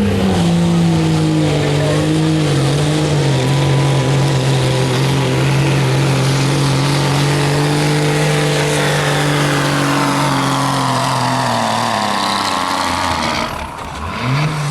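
A pulling truck's engine held at high, steady revs under load while pulling the sled, then dropping off about twelve seconds in, followed by a couple of short blips of the throttle near the end.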